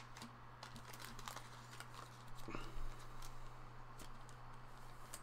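Baseball cards and a clear plastic card sleeve being handled: soft scattered clicks and crinkles, over a steady low hum.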